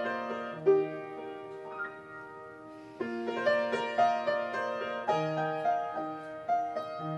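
Piano playing the introduction to a show tune: sustained chords with a melody on top, fresh chords struck about three seconds in and again about five seconds in.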